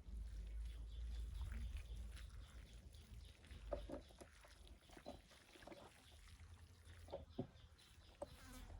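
Hands squishing and kneading wet soil and water into mud, with soft, irregular squelches and crumbling of lumps being pressed apart. A low rumble sits under the first couple of seconds.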